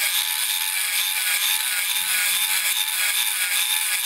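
Sliding miter saw running at full speed with a steady high whine, its blade nibbling a depth-limited notch into a wooden block.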